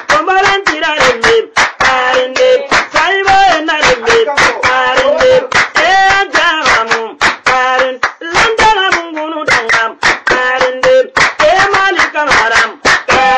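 Singing in a high voice over fast, steady, rhythmic hand clapping.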